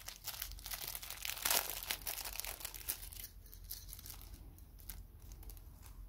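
Small clear plastic bag crinkling as it is torn open by hand. The crackling is dense at first and loudest about one and a half seconds in, then thins to a few light rustles after about three seconds.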